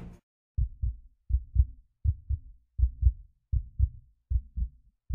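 Music cuts off abruptly, followed by a heartbeat sound effect: low double thumps (lub-dub), about one pair every three-quarters of a second.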